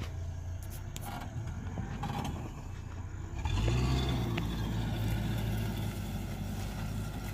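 Suzuki Jimny's 1.3-litre four-cylinder engine running as the 4x4 drives off over rough, grassy ground. Its sound steps up about three and a half seconds in as it pulls forward and turns, then holds steady.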